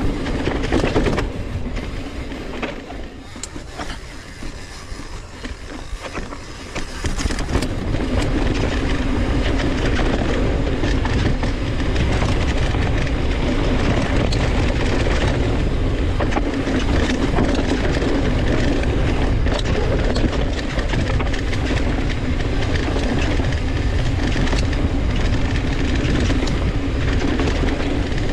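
Polygon Siskiu N7 full-suspension mountain bike riding a dirt trail: tyre roar on the dirt and bike rattle, with wind rushing over the handlebar-mounted microphone. It is quieter at first and turns loud and steady about seven seconds in.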